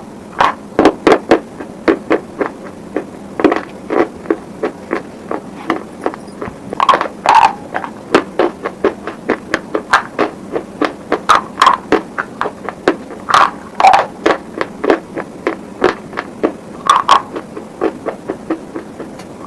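Hard, brittle pieces being bitten and chewed close to the microphone in ASMR eating style: a quick run of sharp crunches and cracks, two to four a second, with louder bites every few seconds.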